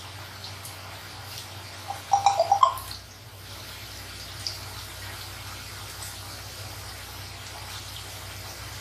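Yeast doughnuts deep-frying in hot oil: a steady sizzling hiss with faint scattered crackles. About two seconds in, a brief loud clatter of several sharp knocks.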